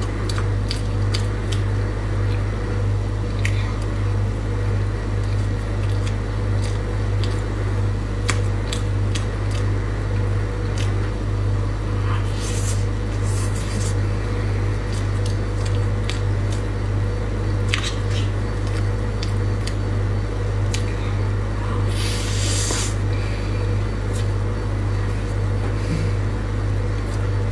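Close-up wet, squishy chewing of soft matcha crêpe cake with small mouth clicks and light spoon taps, over a steady low hum that is the loudest thing throughout. Two short hissy breaths or scrapes come about halfway through and again near the end.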